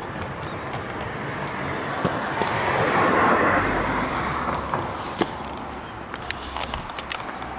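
The air-cooled 3.0-litre flat-six of a 1978 Porsche 911 SC idling. It grows louder about two to four seconds in, with scattered light clicks.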